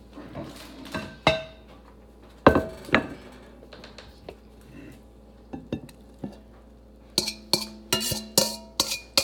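Kitchenware clattering: a few separate knocks of pans and dishes being handled, then near the end a utensil striking a ringing bowl quickly, about four clinks a second.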